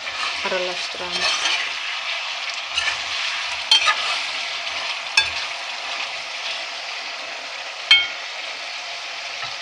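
Liver pieces sizzling in hot oil over high heat in a metal pot while a metal ladle stirs them, with several sharp clinks of the ladle against the pot, the loudest near the end.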